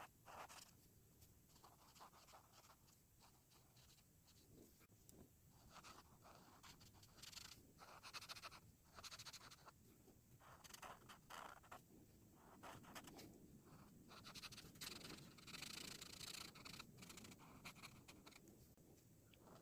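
Faint scratching of coloring strokes on paper, in short rapid runs with a few brief pauses between them.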